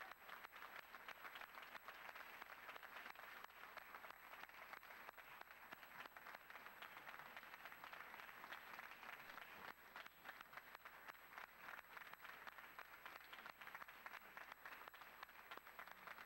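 Faint, steady applause from an audience, many hands clapping in a long round.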